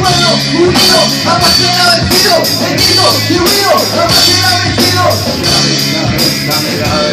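Rock band playing live: drum kit with cymbal hits and electric guitar, an instrumental passage with no singing.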